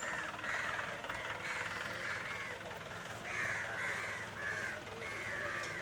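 A flock of crows cawing, many short harsh calls overlapping one another.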